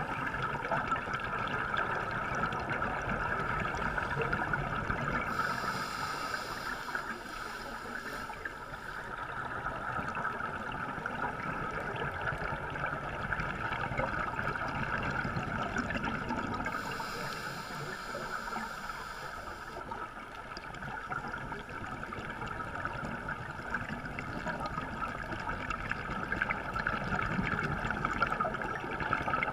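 Underwater ambience recorded on a scuba dive: a steady crackling hiss, with two spells of brighter hiss at about six and seventeen seconds in.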